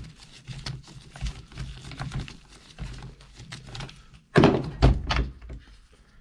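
Socket wrench ratcheting in quick, irregular clicks as a nut on a chainsaw's bar plate is worked loose, then a few loud knocks against the saw's body about four seconds in.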